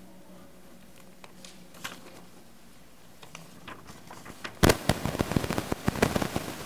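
Handling noise close to the microphone: a few scattered sharp clicks, then a dense burst of loud crackling and clicking about four and a half seconds in that lasts about two seconds.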